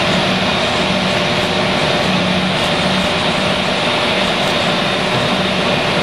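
John Deere 7350 self-propelled forage harvester running steadily under load while chopping corn silage and blowing it into a forage wagon. It makes a loud, even mechanical drone with a constant hum.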